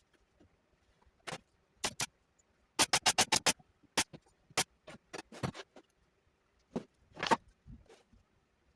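Irregular sharp clicks and taps of small wooden parts being handled and worked, including a quick run of about seven clicks a little under three seconds in and a short scraping sound near the end.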